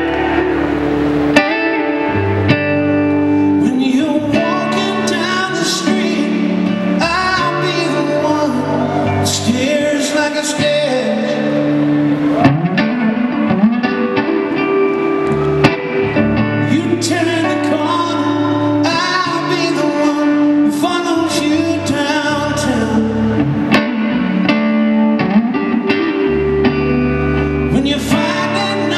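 Live band playing a slow rock song, led by a sunburst archtop electric guitar through an amplifier, with a man singing.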